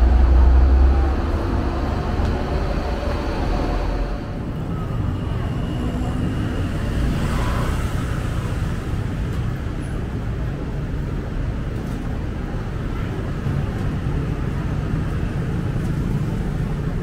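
Busy city street ambience: a steady wash of traffic noise with faint voices of passers-by. A deep rumble runs through the first few seconds, then eases to a steadier, lower hum.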